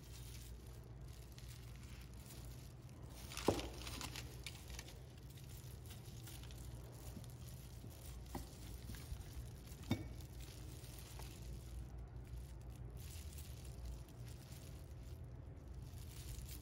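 Rusty metal gear parts of a hand-cranked ice cream freezer being handled and pulled apart: a few sharp clicks and knocks of metal on metal, the loudest about three and a half seconds in and smaller ones around eight and ten seconds, over a steady low hum.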